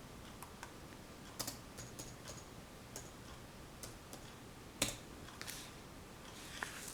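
Graphite pencil on paper: a scattering of light, sharp taps and short ticks, one sharper tap nearly five seconds in, and scratchy sketching strokes starting near the end.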